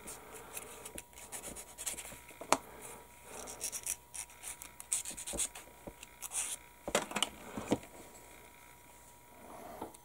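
Small plastic model-kit part rubbed against a sanding stick in short scratchy strokes, with light clicks as the parts are handled.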